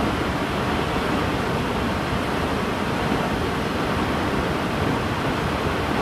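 Waterfall: the steady rushing of falling water, even and unbroken.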